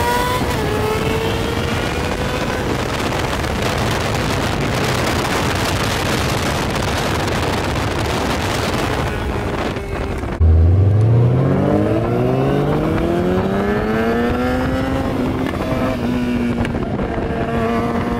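Car racing at speed: for the first half, a loud even rush of engine and road noise. About ten seconds in the sound changes abruptly to an engine at full throttle, its note climbing steadily through the revs for several seconds before levelling off.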